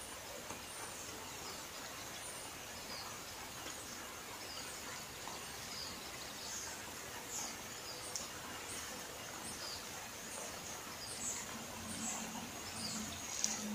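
Dough shapes frying in shallow oil in a pan: a steady sizzle with many small scattered pops and crackles. A low hum comes in near the end.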